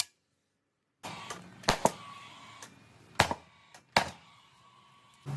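A few sharp knocks, each leaving a short, faint ringing tone, after a second of silence.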